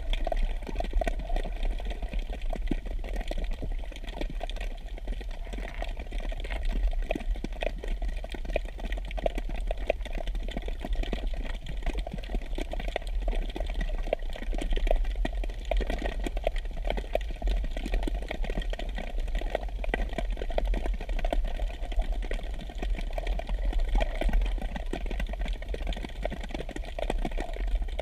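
Underwater ambient noise: a steady low rumble with constant fine crackling clicks.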